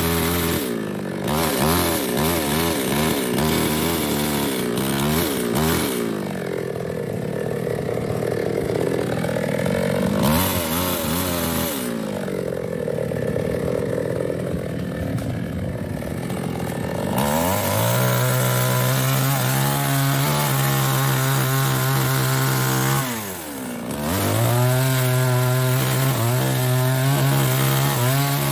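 Small two-stroke New West 628 chainsaw cutting through a mahogany log, its engine speed rising and falling as the chain bites. Through the middle it runs lower under the load of the cut, then holds a steady high speed, with the throttle let off briefly about 23 seconds in before it revs up again.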